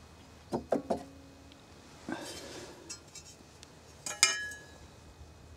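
Steel lawn mower cutting blade being handled as it comes off the blade spindle: three quick metallic knocks about half a second in, a short scrape, then a loud clank with a brief metallic ring about four seconds in.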